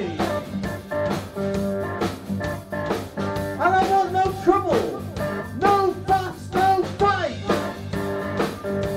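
Live blues band playing: electric guitar, drum kit and keyboards, with a lead line of notes that bend up and down in pitch over a steady drum beat.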